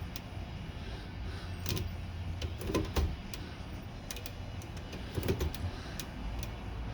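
Royal HH typewriter's carriage return arm and its link being worked by hand: a few scattered metal clicks and knocks from the mechanism over a low rumble. The arm is still binding.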